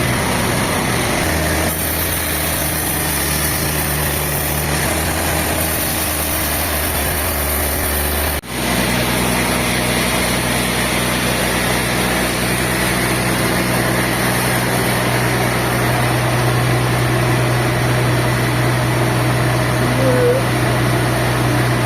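Heavy sawmill machinery engines running steadily, with a hard break about eight seconds in, after which a steady engine hum carries on at a higher pitch.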